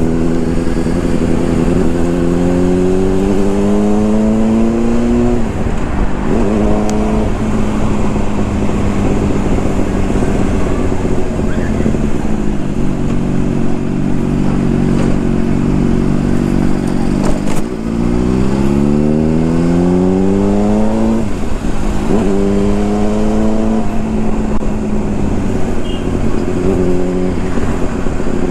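Honda CBR600RR's inline-four engine accelerating through the gears from the rider's seat, its pitch climbing and dropping back sharply at each upshift, with stretches of steady cruising between.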